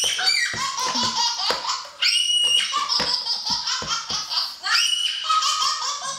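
A baby laughing in a long run of short, repeated giggles.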